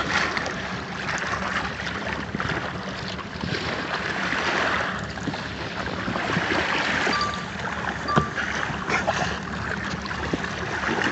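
Water rushing and splashing along the hull of a slow-moving motorboat, swelling and easing, over a steady low engine hum.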